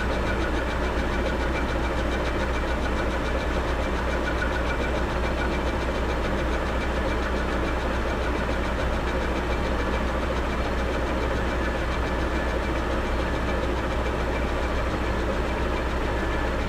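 South Bend 14½ metal lathe running steadily, its motor and gear train giving an even mechanical hum.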